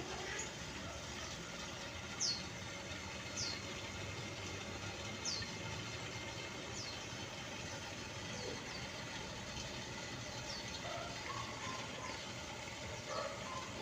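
A small bird chirping, giving short, high, falling calls about every one to two seconds over a steady background noise.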